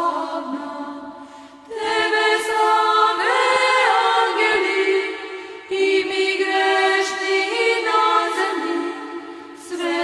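Choir singing a slow hymn in long held chords, with new phrases starting about two and six seconds in.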